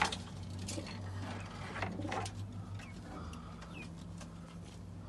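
Pigeons in a loft: scattered light clicks and a few short high chirps over a steady low hum.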